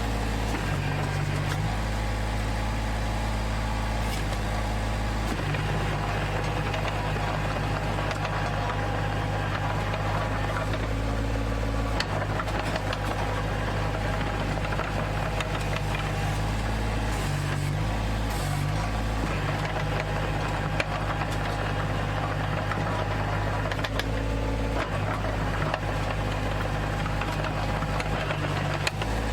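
Komatsu PC05-7 mini excavator's diesel engine running steadily while it works, its note stepping up and down several times as the hydraulics take load, with a few short knocks along the way.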